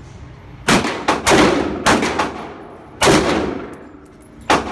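About six gunshots at uneven spacing: two close together about a second in, then one each near 2, 3 and 4.5 seconds in. Each shot is a sharp crack with a ringing echo that dies away.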